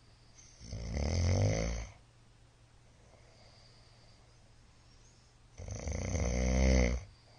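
A middle-aged man snoring loudly in his sleep: two long snores about four and a half seconds apart, each lasting a little over a second.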